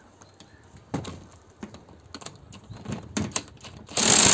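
Light metallic clicks and knocks of tools being handled, then near the end a cordless impact wrench starts hammering loudly on a hex bit clamped in an old cordless screwdriver's chuck, to knock the chuck loose.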